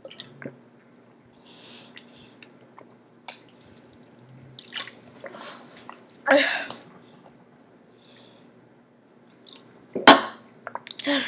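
A person chugging iced tea from a tall can: faint gulps and breaths, then a loud breathy vocal gasp about six seconds in, after the can comes down, and another loud, sharp vocal burst near the end.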